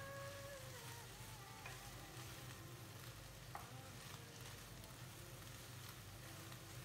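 Chopped chicken breast with onion, garlic, chilli and mayonnaise sizzling faintly in a frying pan while being stirred, with a couple of light knocks of the utensil against the pan.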